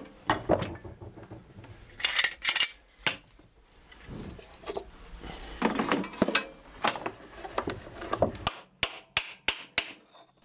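Workshop handling noise: metal clinks and wooden knocks as sash clamps and a glued-up wooden panel are worked on. Near the end, about five sharp taps of a mallet on a wooden block held against the panel's edge.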